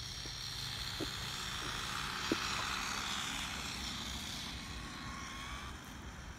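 Losi Mini-T 1/18-scale electric RC truck driving across asphalt: a whirring motor and tyre hiss that swells over the first couple of seconds and fades toward the end, with two light knocks.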